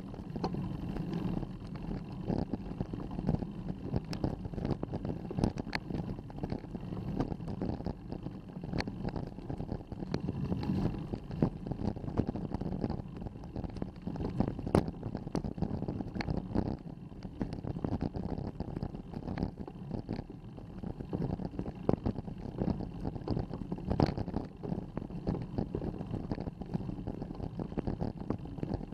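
Road bicycle climbing slowly up a steep grade, heard through a handlebar-mounted action camera: a steady low rumble with frequent irregular clicks and rattles.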